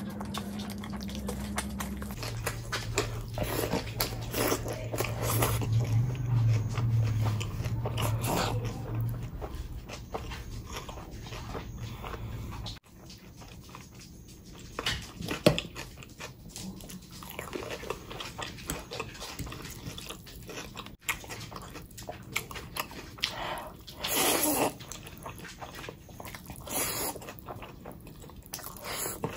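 Close-miked eating: chewing, biting and wet lip-smacking in irregular bursts. A steady low hum runs under the first half and cuts off suddenly about thirteen seconds in.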